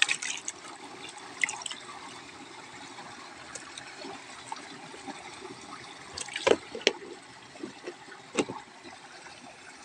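Small Channa limbata snakeheads splashing and stirring shallow water in a plastic food tub, with a few sharp clicks and knocks as the tub's lid is put on and pressed shut near the end.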